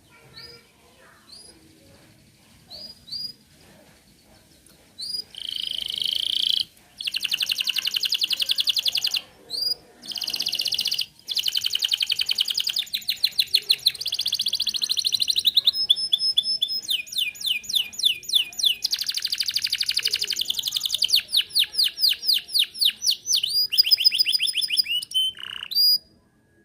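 Domestic canary singing: a few short, high chirps, then from about five seconds in a long, loud song of fast trills and rolls, each phrase a rapid run of repeated high notes, changing from one phrase to the next until it breaks off just before the end.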